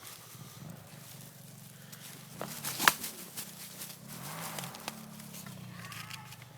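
Footsteps and rustling of someone moving outdoors, with a few sharp knocks about two and a half to three seconds in, the loudest a single crack near three seconds.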